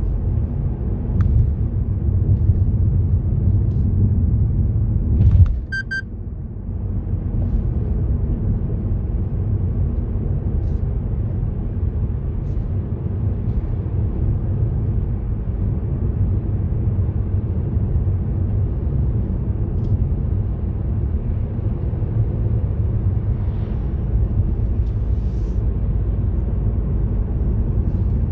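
Steady low rumble of a car's engine and tyres heard from inside the moving car. About six seconds in, the rumble briefly drops and a short run of quick beeps sounds.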